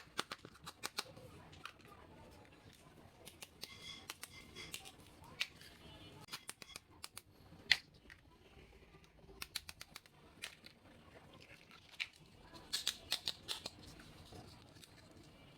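Small plastic toy pieces and their packaging being handled during an unboxing: many sharp clicks and taps, with quick bursts of rustling about four seconds in and again near the end.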